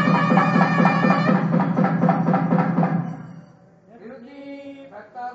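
South Indian temple music: a nadaswaram reed pipe holding long notes over quick thavil drum strokes, fading out about three seconds in. After a short lull a softer voice starts.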